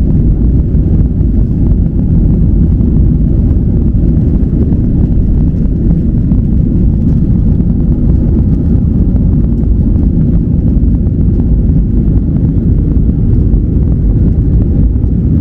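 Airliner on its take-off roll: a loud, steady, deep rumble of jet engines at take-off power and wheels on the runway.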